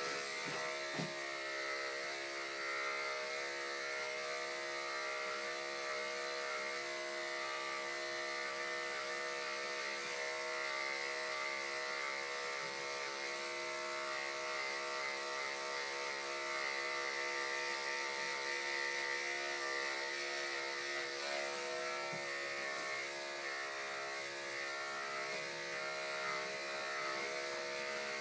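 Electric dog-grooming clippers running with a steady, unbroken buzz as they clip a dog's coat.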